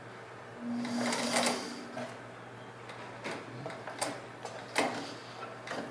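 Sears Kenmore 158-series all-metal sewing machine, with its 1.2 amp motor and two-belt drive, running for about a second and a half with a steady motor hum as it stitches through layers of marine vinyl. Scattered short clicks and knocks follow.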